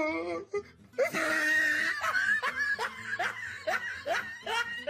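A person laughing: a run of short, repeated bursts of laughter that starts about a second in and tails off toward the end.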